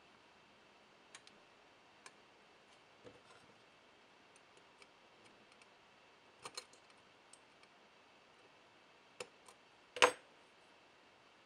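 Scattered light clicks and taps of tweezers and small electronic parts being handled on a through-hole circuit board, with one sharper, louder click about ten seconds in.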